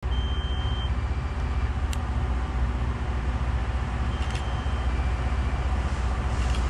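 Steady low rumble of a rail grinder train approaching along the track, with a few faint short tones and clicks over it.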